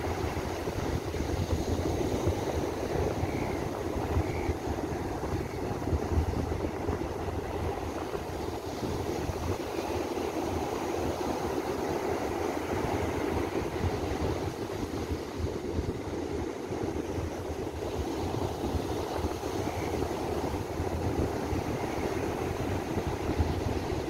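Ocean surf breaking and washing up the beach in a steady rush, with wind buffeting the microphone in gusts.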